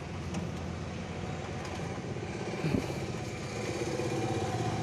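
Tata Indigo's DICOR common-rail diesel engine running steadily at idle, just after its new diesel filter was fitted and hand-primed. A single short knock sounds a little past halfway.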